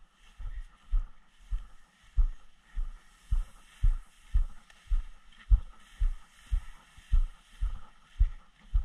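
Footsteps of a person walking through tall grass, heard as low, dull thuds at an even walking pace of nearly two a second, with a faint hiss of grass brushing underneath.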